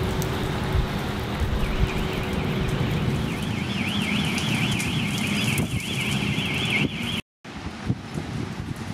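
Storm wind rushing and buffeting the microphone. From about a second and a half in, an electronic alarm warbles quickly up and down, about four sweeps a second. The whole sound cuts out for a moment near the end.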